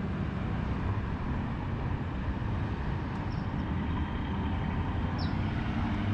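Steady rumble of road traffic passing on a city street, with a few faint short high chirps.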